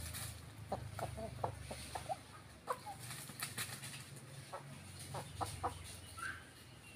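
Ayam kampung (Indonesian village chickens), roosters and a hen, giving short scattered clucks while foraging, mixed with sharp clicks and rustles.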